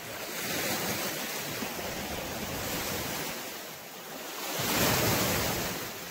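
Small lake waves washing onto a stony beach: a steady wash that swells twice, loudest about five seconds in.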